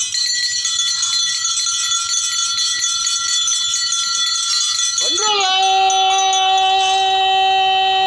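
Intro music on a blown wind instrument: a high held note with a light jingling shimmer over it, then at about five seconds a lower note that swoops up and holds long and steady.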